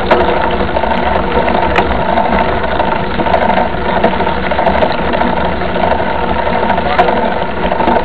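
A vehicle engine running steadily with some rattling, heard from on board while moving along a dirt road.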